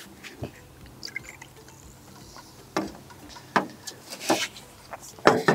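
Sparkling soda poured from a can into small glasses, trickling and fizzing. This is followed by a few short knocks as the glasses are set down and slid on the wooden table.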